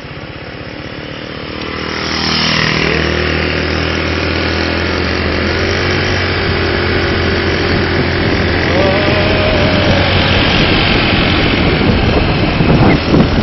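Small motorbike engine idling, then pulling away about two seconds in and running steadily at riding speed, with a rush of wind and road noise over it.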